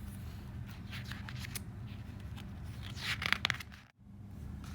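Steady low electrical hum, with a few faint clicks and a short burst of scraping, rustling handling noise about three seconds in, after which the sound drops out abruptly for a moment.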